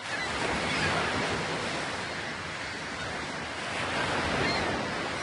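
Ocean surf: a steady rushing wash of waves that swells and eases slowly.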